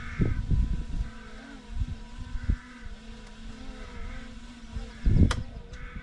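An engine idling steadily, with scattered knocks and a loud heavy thump about five seconds in.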